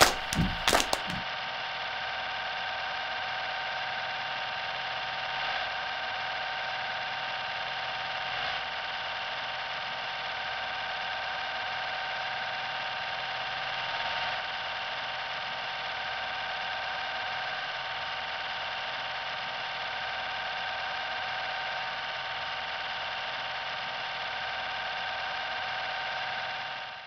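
The tail of a song ends with a few sharp hits about a second in. A steady hissing drone with several held high tones follows and stops abruptly near the end.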